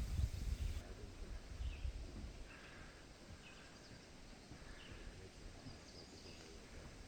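Faint outdoor ambience with a few short, high bird chirps scattered through it; a low rumble at the start dies away within the first second.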